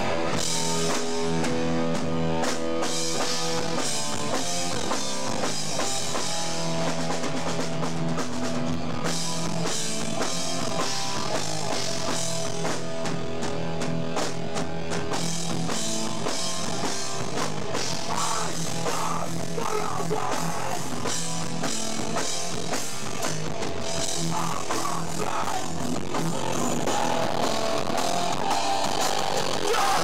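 Hardcore punk band playing live in a small club: loud, distorted electric guitars, bass and drums pounding on without a break.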